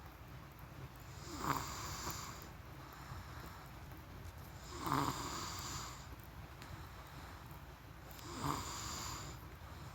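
A person snoring in sleep: three snores about three and a half seconds apart, each about a second long and starting with a short, louder rasp.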